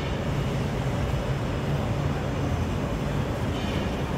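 Steady low rumble of vehicle engines, with a low hum running under it.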